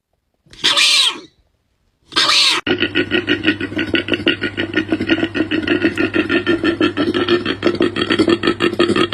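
An animal calling: three short calls, each under a second and falling in pitch. About two and a half seconds in, a continuous rapid pulsing call begins, several pulses a second, over a steady low tone.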